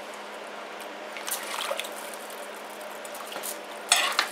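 A metal spoon stirring chicken pieces, onions and water in a pot, with wet sloshing and squishing and a louder clatter of the spoon near the end.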